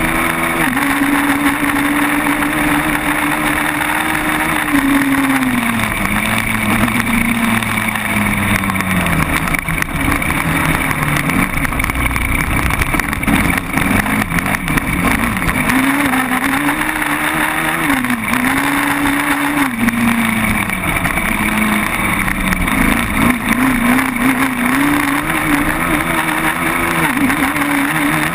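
Quad bike engine running under way, its pitch rising and falling again and again with the throttle, over a steady noisy rush.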